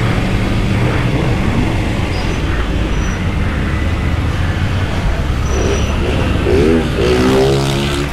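Triumph Tiger 900's three-cylinder engine running at low speed on a slow ride through streets, with a brief rise and fall in engine pitch a little more than six seconds in.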